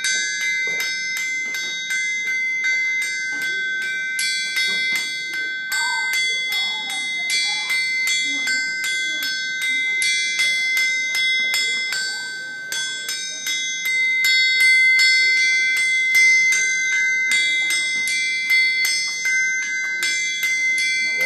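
A forged blacksmith's anvil played as a percussion instrument with two hammers: a fast, continuous run of strikes, each ringing out with high, bell-like tones that sustain and overlap.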